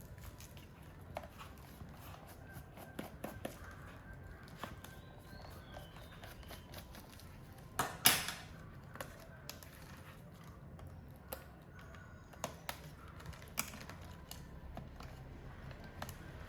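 Scattered light clicks and taps of a small screwdriver and screws being worked out of a laptop's bottom panel, with one sharper click about eight seconds in.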